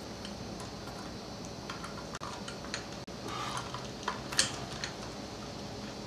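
A few light, irregular metallic clicks and ticks as the small metal weights of a string trimmer's head are handled and hooked into place, over a faint steady hum.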